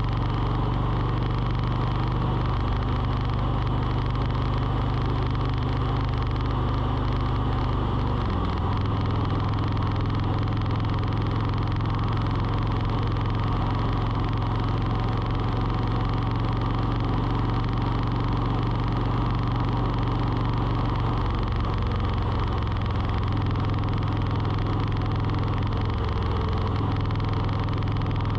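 A motor running steadily with a low hum that shifts in pitch about eight seconds in and again a couple of times near the end.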